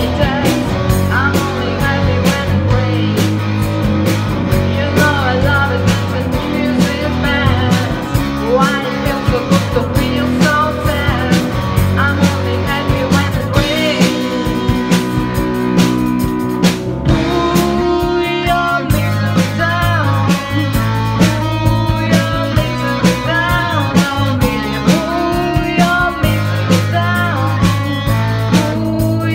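Woman singing a rock song into a microphone over music with electric guitar and drums.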